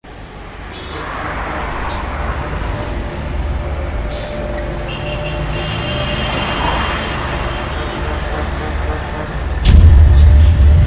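City road traffic: cars and buses passing on a busy street, fading in at the start. A sudden, much louder low rumble comes in near the end.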